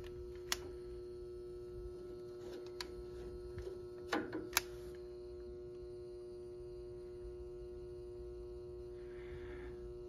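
Steady electrical hum from the powered-up Rheem commercial electric water heater, with a few light clicks of handling about half a second and four seconds in.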